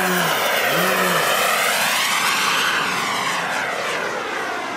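Radio-controlled model jet flying past, a loud rushing whine whose pitch rises and then falls about halfway through, fading slightly toward the end.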